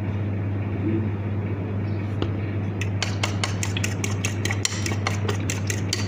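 Metal fork beating egg in a plastic bowl: a rapid, even clicking of fork against bowl at about six strokes a second, starting about halfway through, over a steady low hum.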